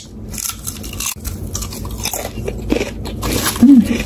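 Close-up biting and chewing of thin potato chips: a run of crisp, irregular crunches. Near the end a brief low hum is the loudest moment.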